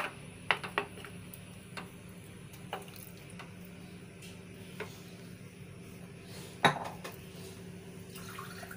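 Wooden spatula stirring potato curry in a metal pot, scraping and knocking against the pot's sides and bottom in scattered irregular knocks, the loudest about two-thirds of the way through.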